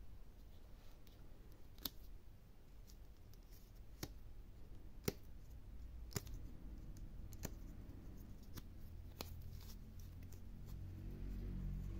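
Sharp little metallic clicks, about six spaced a second or so apart with fainter ones between, from a steel pin buckle being worked on a leather watch strap; low rubbing handling noise grows near the end.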